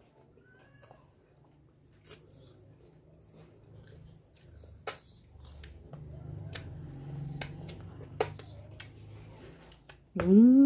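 Eating at the table: a metal spoon clicking against a plastic bowl several times, with faint chewing. Near the end, a short loud vocal sound with rising pitch.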